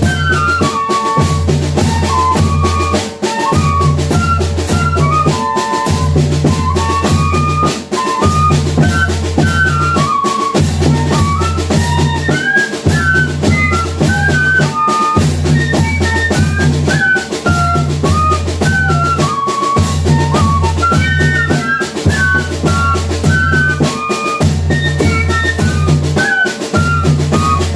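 Banda de pífano playing: a cane fife melody over zabumba bass drum and snare drum, with dense, steady drumming.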